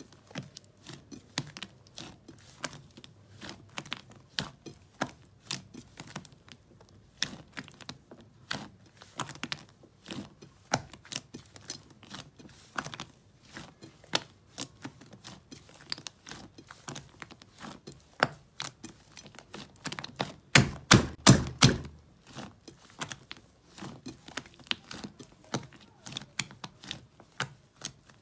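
Hands kneading and squeezing a large mass of thick slime, making an irregular run of sharp wet clicks and pops as air is squeezed out of it. A quick burst of louder pops comes about two-thirds of the way through.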